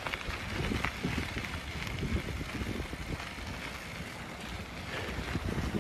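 Wind buffeting the microphone of a phone mounted on a moving bike: a steady low rumble that rises and falls in gusts.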